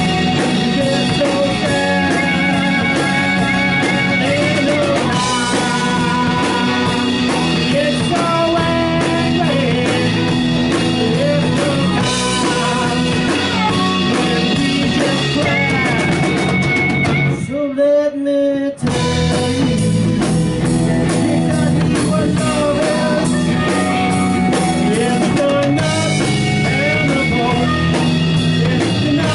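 Live rock band playing an instrumental passage on electric guitar, bass, drum kit and harmonica, with long bending lead notes. A little over halfway through, the band breaks off for about a second, leaving a held note, then comes back in.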